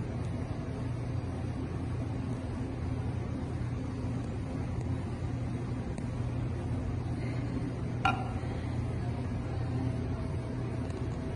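Steady low machine hum of a coffee bar, with a single short metallic clink and brief ring about eight seconds in as the stainless milk pitcher is set down.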